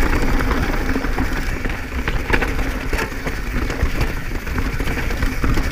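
Mountain bike riding fast down a rough dirt trail: tyres rolling and crunching over dirt and rocks, with the bike rattling in many small clicks and knocks. Wind rumbles on the microphone throughout.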